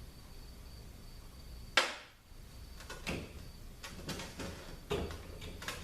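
Metal transmission pump parts being handled: one sharp clack a little under two seconds in, then several lighter knocks and clinks.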